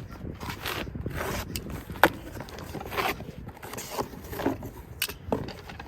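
A shipping box and its packaging being opened by hand: irregular scraping, tearing and rustling, with a sharp click about two seconds in.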